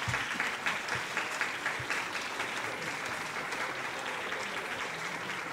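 Audience applauding, the clapping thinning out and growing quieter toward the end.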